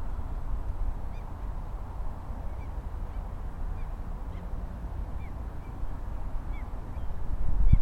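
Waterfowl on a lake calling over and over, short hooked calls every half second or so, over a low steady rumble.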